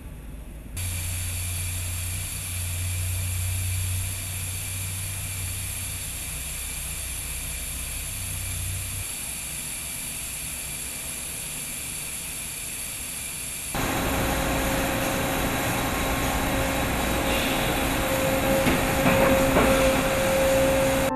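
Factory machinery running steadily: a hiss with high whine tones and a low hum, which fits the pneumatic conveying of plastic pellets through metal tubes. About two-thirds of the way through it gives way to a louder, steady machine hum with clear tones, from an injection moulding machine.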